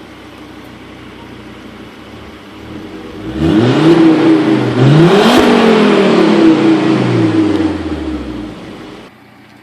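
Volvo S60 R's turbocharged inline-five on its stock exhaust idling, then revved up twice in quick succession, with the revs falling slowly back toward idle. The sound cuts off suddenly near the end.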